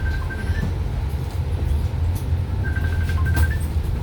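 Low, steady rumble of a bus heard from inside the cabin, with a short high electronic beeping tone sounding twice: right at the start and again about three seconds in.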